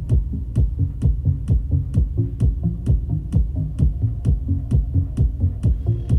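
Electronic dance music with a drum-machine beat of about two hits a second and heavy bass, played through Fluance Ai60 powered bookshelf speakers as a sound test. A held synth tone comes in right at the end.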